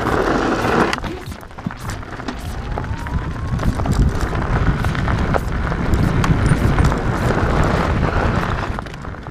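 Bicycle rolling fast over a gravel track, heard from close on the bike: tyre crunch with irregular rattles and knocks from the bike, over a rumble of wind on the microphone.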